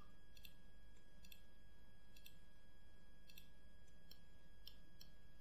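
Computer mouse clicking, a string of about eight faint, short clicks at irregular intervals over a steady low hum of recording noise, as vertices and faces are selected and moved in a 3D modelling program.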